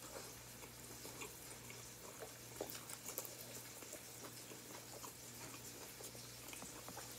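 Faint chewing and mouth sounds of a person eating leafy salad greens such as spinach, with soft, scattered clicks.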